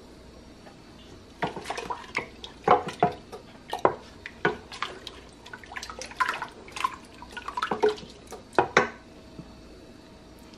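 Wooden spoon stirring carrot juice punch in a large stainless steel stockpot: liquid sloshing and dripping, with irregular knocks of the spoon against the pot, stopping about a second and a half before the end.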